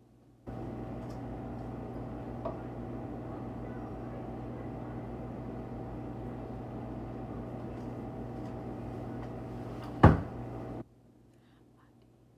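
A steady hum with a low buzz starts abruptly and cuts off suddenly near the end, a loud sharp click coming just before it stops and a small click early in the hum.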